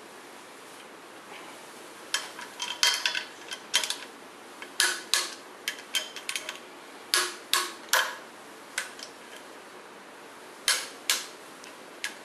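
Ratchet, extension and socket clinking on the water pump bracket bolts of a small-block Chevy 350 as they are fitted and turned by hand: scattered sharp metallic clicks and clinks, a few at a time, some ringing briefly.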